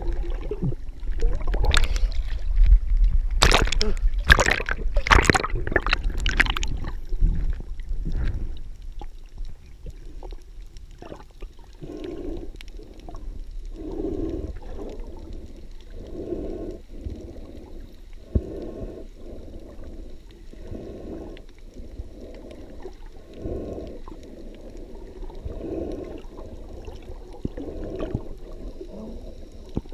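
Water heard by a camera held just under the sea surface: loud splashing and sloshing for the first seven seconds or so, then quieter, muffled surges of water noise repeating about every second and a half.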